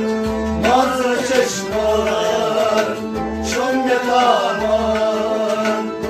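Devotional song (kalam): a voice singing a melody with bending, gliding notes over a held drone and a regular low beat.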